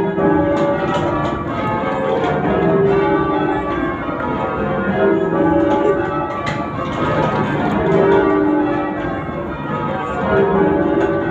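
Heavy ring of ten church bells (Thomas Janaway 1772 and John Warner & Sons 1879, tenor 31 cwt in C#) ringing rounds, heard from the ringing chamber below. The bells strike one after another in a steady repeating order, the deep back bells coming round about every two and a half seconds.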